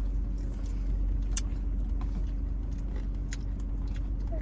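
A steady low hum with a few faint, sharp mouth clicks from chewing.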